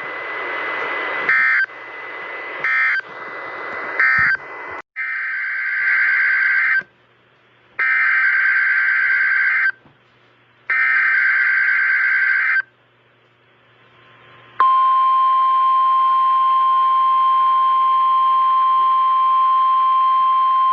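NOAA Weather Radio receiver: static hiss with a few brief bursts, then the SAME header sent three times as warbling two-tone digital data bursts of about two seconds each. About fourteen seconds in, the steady 1050 Hz Warning Alarm tone starts, marking a weekly radio warning alarm test.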